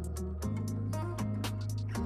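Background music with sustained bass notes and regular drum hits.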